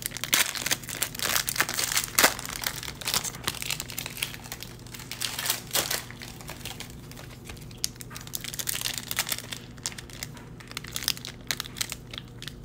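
Foil trading-card pack wrappers crinkling and crackling as hands open packs and handle the cards, busiest in the first half. A steady low hum runs underneath.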